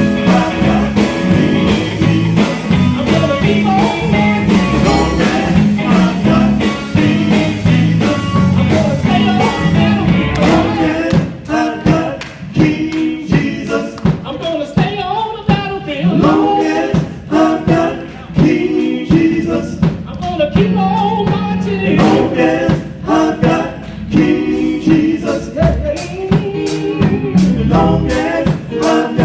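Gospel vocal group singing with a live band of drum kit, bass and guitar, the drumming thinning out about a third of the way in.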